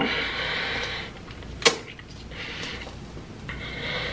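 Close-up eating sounds: a man slurping strands of melted cheese from a stuffed deep-dish pizza and chewing, with one sharp wet mouth smack about a second and a half in.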